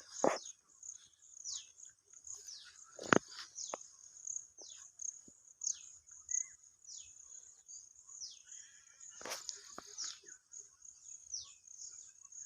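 A bird repeating a short downward-sliding call about once a second, over a steady high-pitched insect drone. Two knocks, about three seconds in and again past nine seconds.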